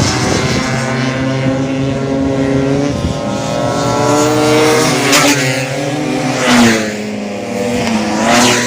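Tuned two-stroke Vespa racing scooter engines running hard at high revs. The sound swells sharply three times, about halfway through, two-thirds through and near the end, and the pitch drops after the later swells.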